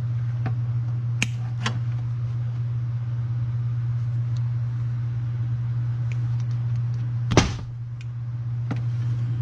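A few sharp clicks and snaps of wire cutters and small tools working on wiring, the loudest snap about seven and a half seconds in, over a steady low hum.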